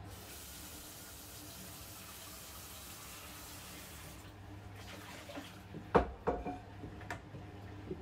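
Kitchen tap turned on, water running into a frying pan in the sink. About four seconds in the tap is turned down and the hiss thins. Around six seconds there are a few sharp clunks of the pan knocking in the sink, the first the loudest.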